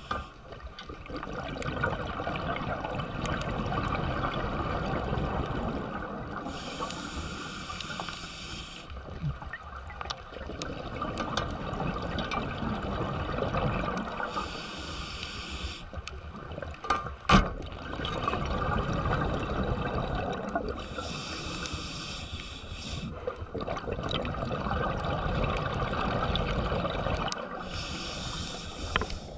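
Scuba diver breathing through a regulator underwater. Four times, about seven seconds apart, comes an inhale hiss of about two seconds, and between them runs the low bubbling rumble of exhaled air. A single sharp click comes a little past halfway.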